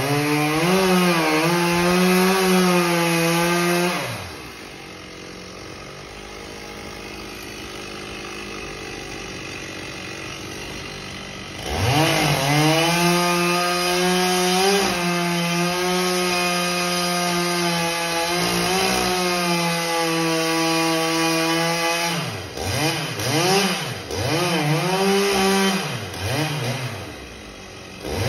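Two-stroke chainsaw running at full throttle as it cuts through a palm trunk, then dropping to a much quieter idle for about eight seconds. It revs up and cuts steadily again, and in the last few seconds is blipped up and down in short revs.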